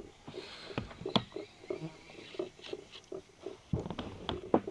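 Soft, irregular clicks and taps of small objects being handled, a few per second, with no steady rhythm.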